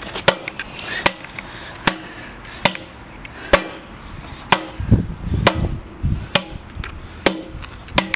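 Footsteps of shoes on brick paving, sharp regular steps a little under a second apart, with a low rumble about halfway through.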